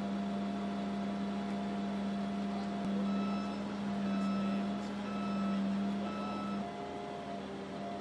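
A mobile crane's engine runs with a steady low hum. From about three seconds in, a warning beeper sounds about once a second, four times, and the hum eases slightly near the end.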